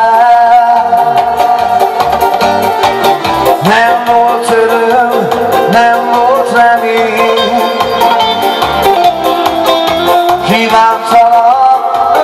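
Live amplified music: a man singing into a handheld microphone over a band or backing track of sustained chords, bass and percussion.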